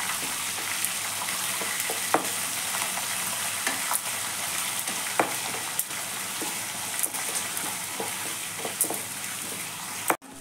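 Green chillies and curry leaves sizzling in hot oil in an aluminium kadai, stirred with a metal spatula that scrapes and clicks against the pan now and then. The sound breaks off for a moment near the end.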